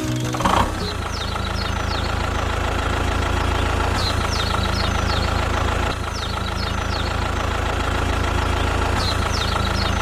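A small engine running steadily at idle, with groups of short high chirps recurring every few seconds.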